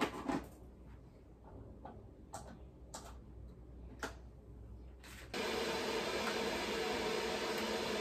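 A few light knocks, then about five seconds in a steady whirring noise like a small electric motor switches on suddenly and keeps running.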